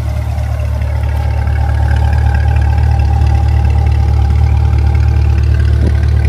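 Chevrolet Corvette C8's mid-mounted 6.2-litre LT2 V8 idling steadily, not yet revved. It grows a little louder over the first couple of seconds.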